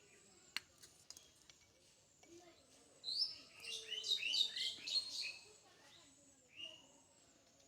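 Small birds chirping: scattered high calls, then a quick, louder run of chirps starting about three seconds in and lasting a couple of seconds. A single sharp click sounds about half a second in.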